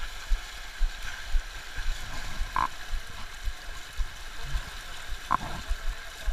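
Fast river current rushing and gurgling over shallow riffles, with frequent low bumps on the microphone and two brief higher sounds about two and a half and five seconds in.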